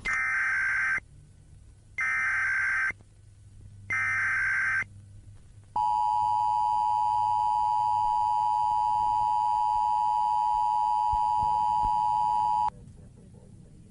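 Emergency Alert System tones: three one-second bursts of SAME header data a second apart, then the steady two-tone attention signal held for about seven seconds before cutting off suddenly. They mark the start of a new emergency alert.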